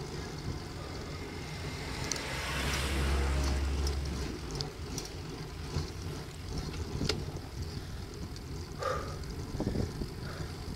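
Wind rumble on a bicycle-mounted camera microphone during a slow uphill ride. A car goes by, its sound swelling and fading between about two and four seconds in. A few light clicks are scattered through.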